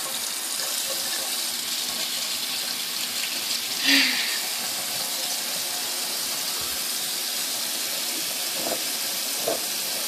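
Tap water running steadily into a sink, with a short louder burst about four seconds in.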